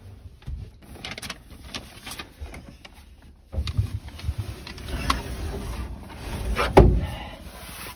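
Rustling and small knocks of someone climbing into a wooden closet among bedding. A sliding closet door is then pulled shut, with a sharp bump just before the end.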